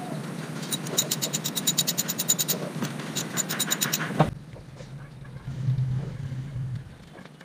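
Ratchet wrench clicking rapidly, about nine clicks a second, in two runs with a short pause between, as a fastener is worked in a pickup's engine bay. The clicking stops abruptly about four seconds in.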